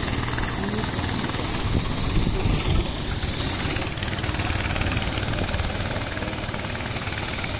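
Small go-kart engines running as several karts lap the track, a steady mechanical drone.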